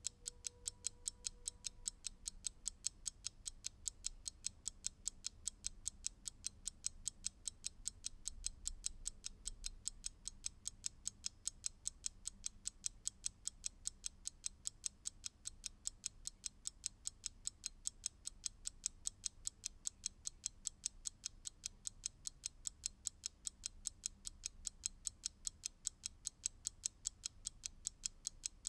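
Mechanical clock ticking fast and evenly, a steady train of sharp, bright ticks.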